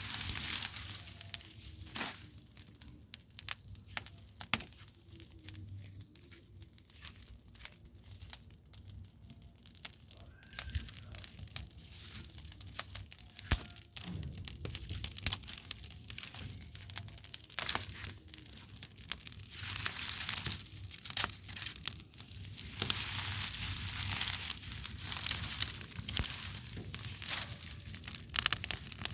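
Dense, irregular crackling and crinkling of dry bonfire material (leaves, twigs, paper), growing louder and busier in the last third.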